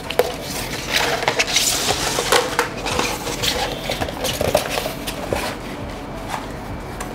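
Large rolled paper poster being handled and unrolled: stiff paper rustling and crackling, busiest in the first few seconds and dying down near the end.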